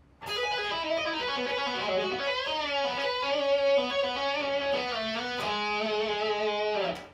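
Electric guitar played solo: a melodic lead line of single notes with string bends and a long held note in the middle, stopping abruptly just before the end.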